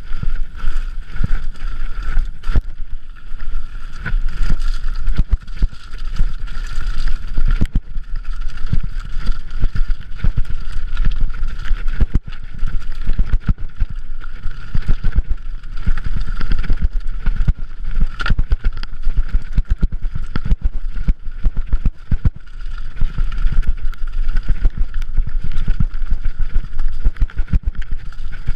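Mountain bike rattling and jolting over a loose, rocky track at speed: a constant clatter of tyres striking stones and the bike chattering, with dense, irregular knocks throughout.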